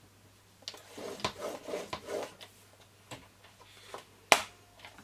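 White cardstock being handled on a paper trimmer after scoring: a rustling scrape of stiff paper for about a second and a half, then a few light clicks and one sharp tap about four seconds in as the sheet is lifted off.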